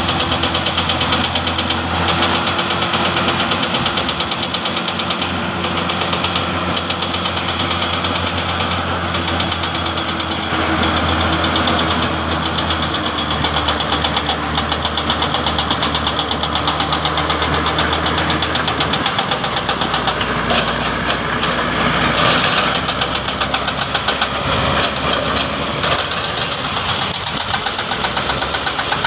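Diesel engines of heavy earthmoving machines, excavators and a crawler dozer, running steadily under work with a fast, even knocking pulse. The low engine note shifts lower about two-thirds of the way through.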